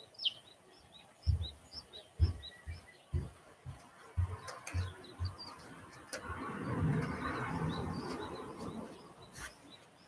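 Small birds chirping over and over, short high chirps throughout. Several dull low thumps in the first half are the loudest sounds, and a rush of noise swells and fades in the second half.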